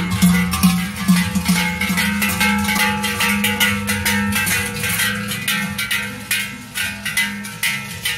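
Large cowbells worn by Krampus and Perchten figures clanging as they walk, many overlapping strikes a second with ringing tones that hang on.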